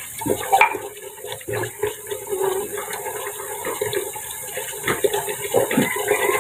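Water running and splashing at a sink while dishes and utensils are washed by hand, with scattered clinks and knocks of the items being handled.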